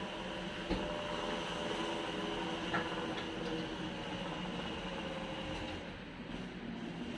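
Steady mechanical hum, with two light clicks about one and three seconds in.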